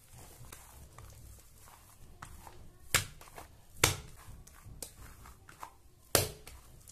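Bread dough being kneaded by hand on a silicone mat: soft pressing and rubbing with short thumps and slaps of the dough against the mat, three louder ones about three, four and six seconds in. The dough is being worked towards a smooth, elastic, non-sticky stage.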